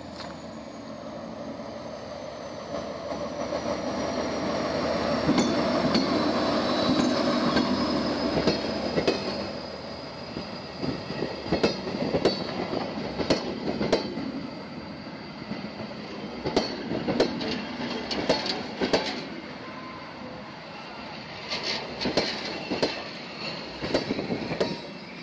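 Diesel locomotive-hauled train of vintage passenger coaches passing close by. The engine's running is loudest about six to nine seconds in, then the wheels click over the rail joints again and again as the coaches roll past. A thin high wheel squeal, slowly falling in pitch, runs underneath.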